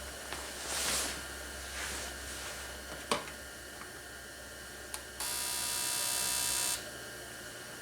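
A fuel injector being pulsed by a tester during a balance test: one loud electric buzz lasting about a second and a half, dropping the rail pressure from 50 to 30 psi. Before it come a couple of soft hissing swells and two sharp clicks.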